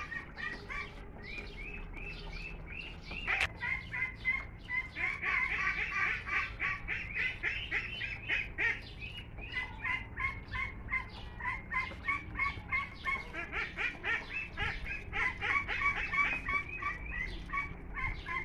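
Young ducks peeping continuously in a rapid string of short rising cheeps. A single sharp click comes a little over three seconds in.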